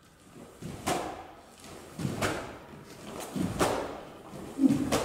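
Karate gi snapping sharply with each of four stepping reverse punches, about one every 1.3 seconds, each led in by a dull thud of the step on the wooden floor.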